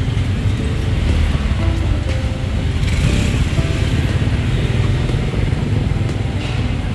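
Steady street noise of passing cars and motorbikes, with music playing over it.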